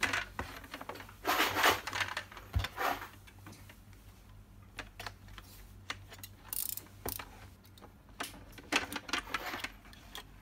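Hard plastic handling noise from a BB target frame: scattered clicks and taps, with two longer scraping stretches about a second in and near the end, as the frame is turned over and a utility knife blade is worked into a slot in its side.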